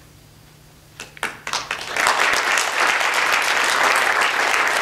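Audience applauding: a few scattered claps about a second in, quickly swelling into steady full applause.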